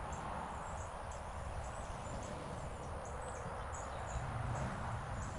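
Steady outdoor background hiss with a short, high chirp repeating about twice a second, from a bird or insect.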